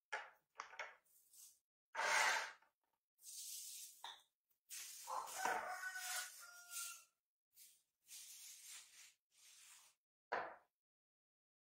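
Thin plastic bag crinkling and rustling in short bursts as it is pulled off a coconut by hand.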